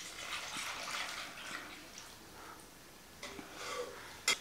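Milk pouring in a splashing stream from a bowl into a pan of almonds fried in ghee, fading out about two seconds in. It is followed by faint stirring sounds from a slotted spoon and a single sharp tap near the end.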